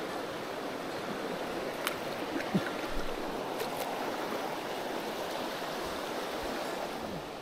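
Shallow mountain trout river flowing steadily over rocks. A few light clicks are heard about two to four seconds in.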